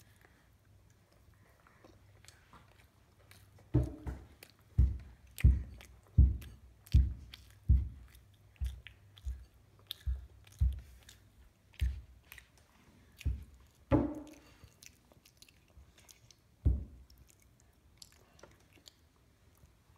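A child chewing food very close to the microphone, heard as a run of deep, loud thumps, about one and a half a second from about four seconds in, thinning out and stopping near seventeen seconds.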